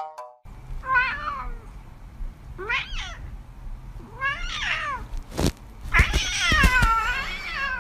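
A domestic cat meowing: three short meows, then one long, wavering meow near the end. A few sharp knocks come in between, about two thirds of the way through.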